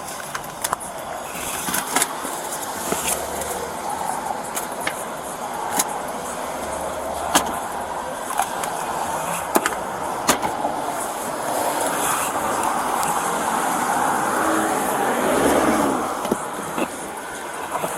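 Road traffic going by: a steady rush of vehicle noise that swells louder later on and then eases, with scattered sharp clicks and knocks close by.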